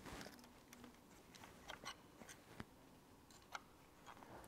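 Near silence with a few faint, light clicks of a thin metal pick against the crankshaft sensor's magnetic disc on an Opel engine's crankshaft flange as it is worked loose.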